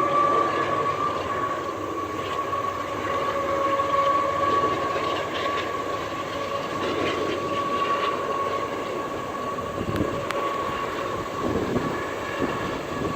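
A train passing: a steady rumble of rolling cars on the rails, with a constant high whine held above it.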